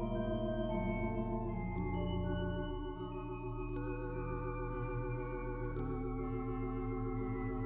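Slow background music of held chords with a wavering tremolo, the notes changing every second or two while the upper line steps downward.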